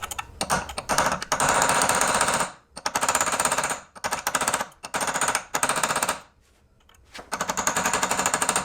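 Pneumatic air hammer with a chisel bit rattling against the staked collar of the rear axle nut, bending its crimped lip up so the nut can come off. It runs in several bursts of a second or two with short pauses between.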